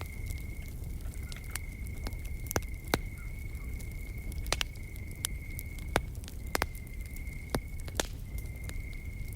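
Wood fire crackling, with irregular sharp pops (the loudest about 3, 6 and 8 seconds in) over a low steady rumble, while an insect keeps up a continuous high trill broken by short gaps every second or two.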